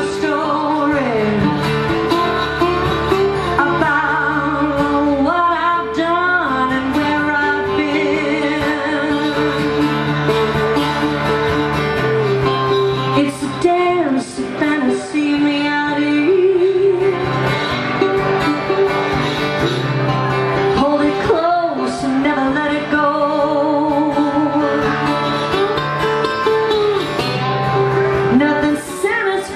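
Live acoustic country song: a woman singing over her acoustic guitar, with a resonator guitar played alongside.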